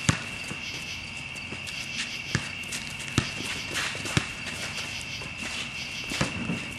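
Basketball bouncing and players' sneaker footsteps on an outdoor court: a handful of sharp knocks, the loudest right at the start, over a steady high chirring of insects.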